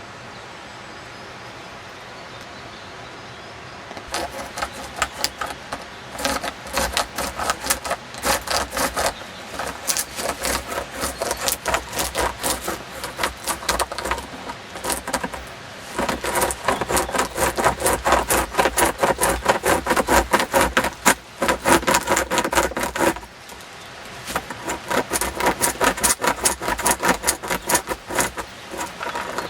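Homemade hand chain saw, a loose chainsaw chain pulled back and forth by two handles, rasping through a tree trunk in quick strokes, about two to three a second, with the chain links rattling. It starts about four seconds in and stops briefly a few times. The chain is not tensioned enough and binds in the cut.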